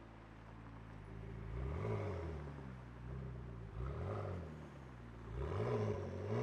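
McLaren 650S twin-turbo V8 with a race exhaust idling, with three short throttle blips that rise and fall in pitch: about two seconds in, about four seconds in, and a longer, louder one near the end.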